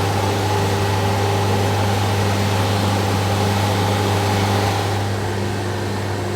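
Concrete floor grinder running: a steady low machine hum with a grinding hiss over it. About five seconds in, the hiss and one of the higher tones fall away and the sound gets a little quieter.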